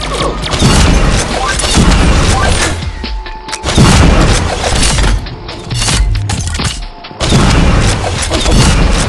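Fireworks going off in a run of loud booms and crackling bursts, with music playing underneath. There are short dips about three and seven seconds in, each followed by a sudden loud burst.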